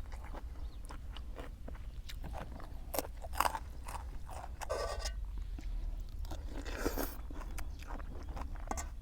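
A person chewing and crunching food close to the microphone, with scattered crisp crunches.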